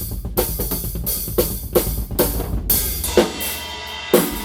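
Acoustic drum kit played in a small untreated room: a steady groove of kick, snare and cymbal hits, about two to three strokes a second, with a loud accented hit near the end.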